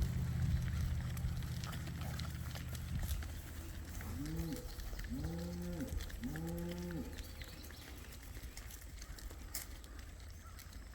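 Cattle mooing three times in quick succession, about a second apart, each call rising then falling in pitch, after a low rumble that fades out in the first few seconds.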